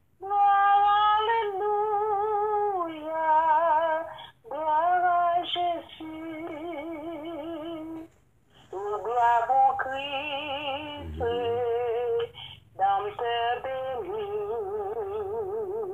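A high voice singing a slow melody in long held notes with vibrato, in phrases of a few seconds broken by short pauses.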